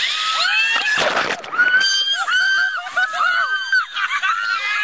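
Several people screaming and whooping in overlapping high cries as a raft runs whitewater rapids, with a splash of a wave about a second in and the rush of the river underneath.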